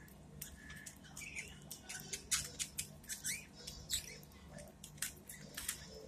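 Pet budgerigars in a cage: many quick, crisp clicks as a budgie's beak nibbles a sprig of leafy greens, with a few short, soft chirps in between.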